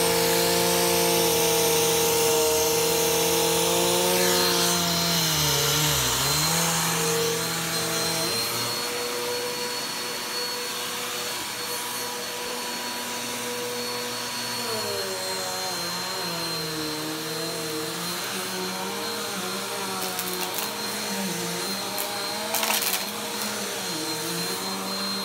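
Vacuum cleaner running over carpet, its motor hum dipping in pitch about six seconds in and then wavering up and down as the load changes. A few sharp clicks sound near the end.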